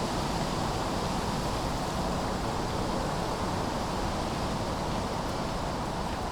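Steady autumn wind mixed with the continuous hum of road traffic crossing a city bridge, an even rushing noise with no distinct events.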